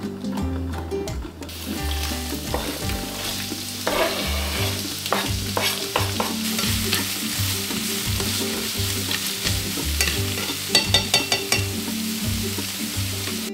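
Diced onion sizzling in hot oil in a frying pan, the sizzle starting about a second and a half in, with scrapes and taps of a knife or spatula against the pan, in a quick cluster near the end.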